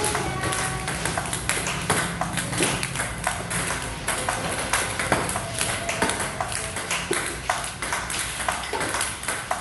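Table tennis multiball practice: celluloid-type ping-pong balls clicking off paddles and bouncing on the table in a quick, uneven run, two or three clicks a second.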